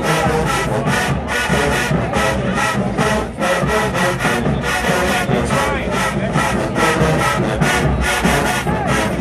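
HBCU marching band playing, horns over a fast, steady drum beat.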